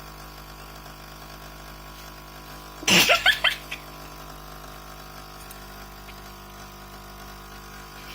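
A metal spoon tapping on a ceramic cup of hot coffee: a quick run of about five ringing strikes about three seconds in, their notes sliding upward in pitch, with one lighter tap just after. This rising pitch is typical of the hot-chocolate effect in a freshly stirred hot drink.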